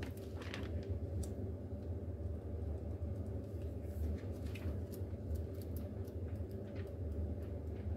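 Steady low background hum with faint scattered clicks and rustles of handling.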